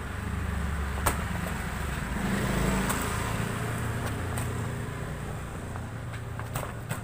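Low rumble of a motor vehicle, swelling about two seconds in and then easing off, with a few sharp slaps of boxing gloves landing in sparring.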